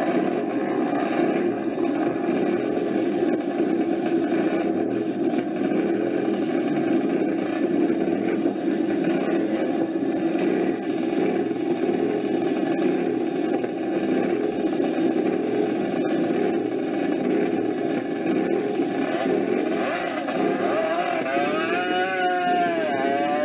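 Motorcycle engines running steadily. Near the end one engine revs, its pitch rising, dipping and rising again.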